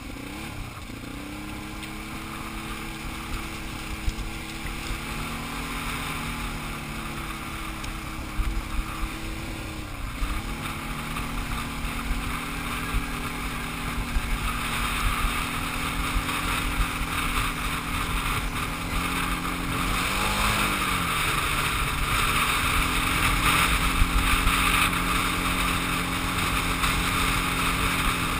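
Quad ATV engine running under way on a gravel trail, its pitch holding steady and dipping briefly a few times as the throttle is eased or a gear is changed. A rushing noise grows louder through the second half, with scattered ticks.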